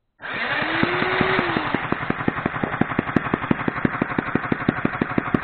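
Homemade single-cylinder six-stroke model engine cranked by an electric drill on its shaft, with the drill's motor whining up and back down over the first second or so. The engine then fires on its own, a steady run of sharp pops at about eight a second.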